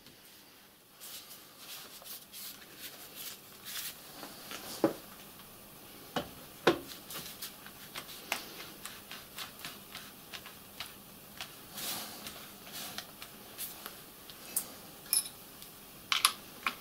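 Irregular small metal clinks, taps and knocks as tools and a metal adaptor plate are handled and tightened onto a milling machine head, with a couple of louder knocks midway and a quick cluster of clicks near the end.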